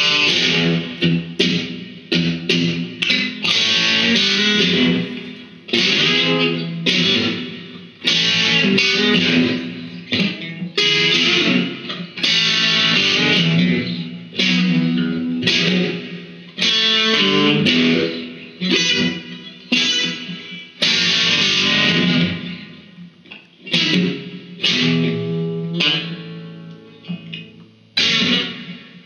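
Solo electric guitar playing a blues instrumental break: phrases of single notes and chords with short gaps between them, no singing.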